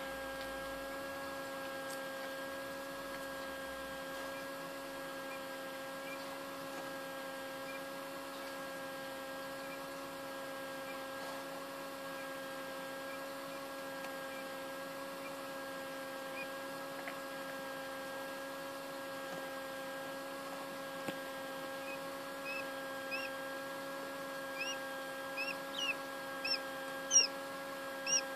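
Quail chick peeping: short, high chirps that begin about two-thirds of the way in and come louder and closer together near the end, over the steady hum of the incubator's fan.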